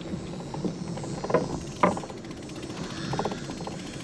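Bicycle being ridden along a trail: steady rolling and wind noise, with two sharp clacks about half a second apart a little over a second in, and a brief run of rapid ticks near the end.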